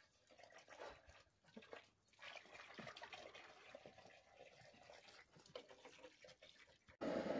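Faint rustling and small clicks of handling. About seven seconds in it cuts to a loud, steady rushing hiss: a handheld gas torch being fired to light the charcoal grill.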